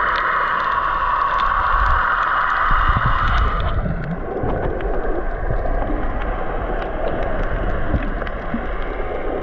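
Muffled underwater rush of wave surge and churning bubbles, as picked up by a camera held under the water, with low rumbling knocks through the middle and scattered small clicks. The bright hissing part of the rush falls away about four seconds in.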